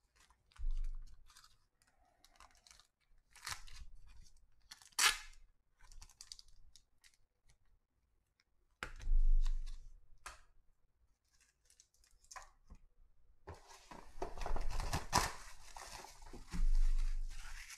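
Plastic shrink wrap being torn and crinkled off a sealed trading-card box, dense and crackling through the last few seconds. Before it come scattered rustles and knocks of cards and boxes being handled, with a heavy thud about nine seconds in.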